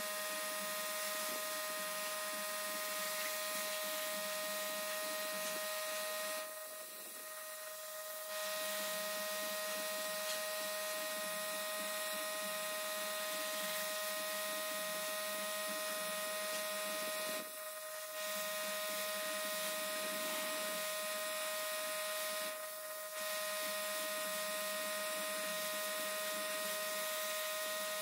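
A small electric motor running steadily with a constant whine, easing off briefly three times: about seven seconds in, near the middle, and again later.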